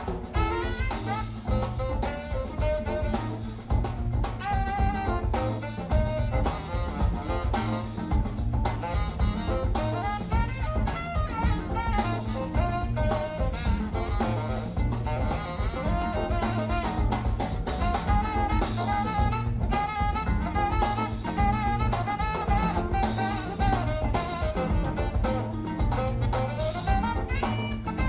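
Background jazz music with drum kit and saxophone over a steady beat.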